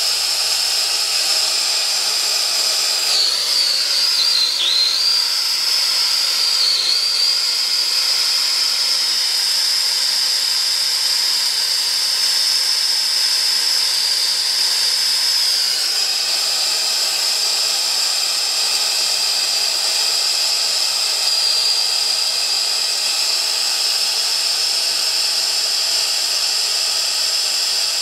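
Brazing torch burning on a copper pipe: a steady hiss with a high whistling tone that wavers briefly a few seconds in.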